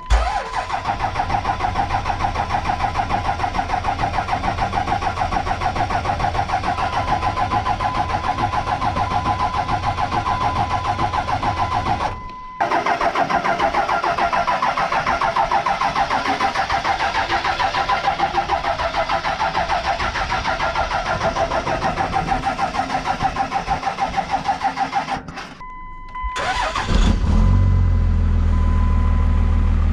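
2nd-gen Cummins 5.9 L inline-six turbodiesel being cranked on the starter in two long stretches of about twelve seconds each, with a short pause between, while the newly installed FASS lift pump's fuel system primes. About three seconds before the end it catches and settles into a steady idle.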